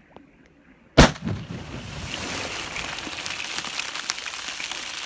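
A firework rocket bursting under thin ice with one sharp bang about a second in, followed by a steady patter of ice shards and spray raining back down onto the ice and water.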